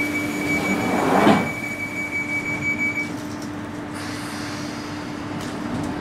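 London Underground Northern Line 1995 Stock tube train running through the tunnel, heard from inside the carriage: a steady drone with a high whine that stops about three seconds in, and a brief loud rush about a second in.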